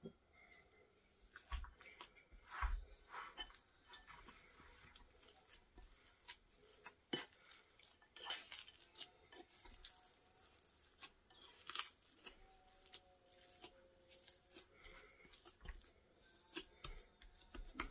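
Silicone spatula folding and pressing a sticky vegan ham paste against the sides of a bowl: faint, irregular soft scrapes and small clicks.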